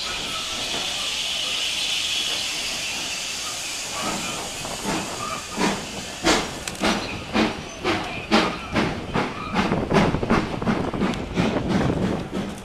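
Steam locomotive hissing steam, then from about four seconds in its exhaust beats start, slow at first and quickening as it pulls away.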